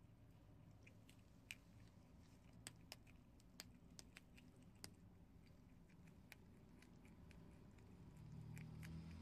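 Prairie dog biting and chewing dry, uncooked instant ramen noodles: faint, irregular crisp crunches and clicks of its teeth on the hard noodle pieces.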